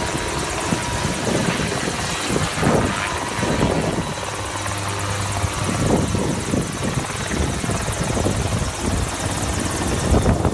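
Light helicopter flying low and close, its main rotor beating rapidly over the steady noise of its engine.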